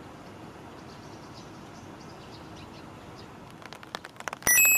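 Railway car wheels squealing on steel rails in a depot: a short, loud, high-pitched squeal made of several steady tones about four and a half seconds in, just after a run of clicks, over a steady outdoor background with a few faint bird chirps.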